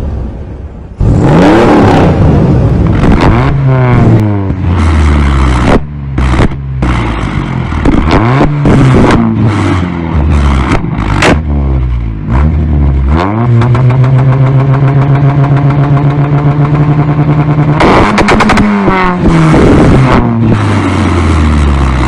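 Petrol engine revved hard over and over, with several sharp exhaust bangs. From about 13 to 18 seconds in it is held at a steady high rev against an ignition-cut rev limiter, so the note stutters rapidly.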